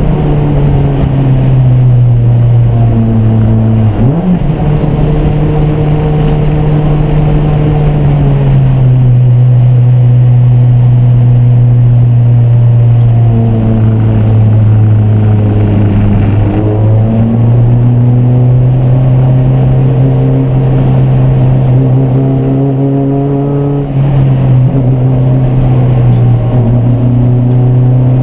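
Racing car engine running hard and steadily, its pitch dropping and rising in steps several times.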